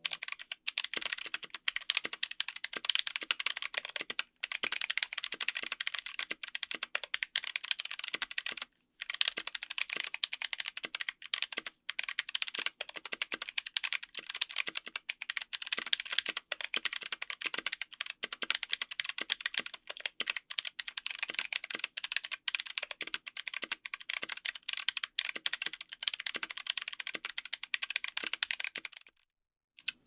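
Fast two-handed typing on a mechanical keyboard with Kailh BOX Summer clicky switches, GMK ABS keycaps, an FR4 plate and an aluminium case. It makes a dense stream of crisp clicks with a few brief breaks, and stops near the end.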